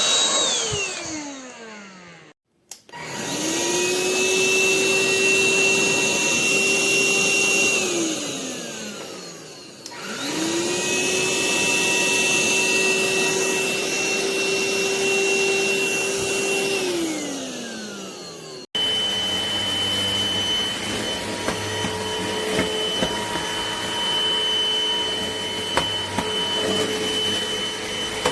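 Rowenta XPert 6.60 cordless stick vacuum's motor being switched on and off. It spins up to a steady whine, runs a few seconds and winds down, twice over. Then it runs steadily at a different pitch.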